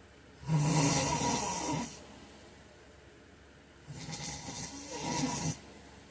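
A man snoring in his sleep: two snores, each lasting over a second, about three and a half seconds apart.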